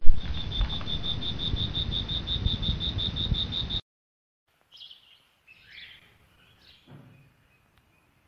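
Recorded cricket chirping, a steady high chirp about six times a second over a hiss, opening with a short thump and cutting off suddenly a little under four seconds in. After a short silence, a few faint, scattered bird chirps follow.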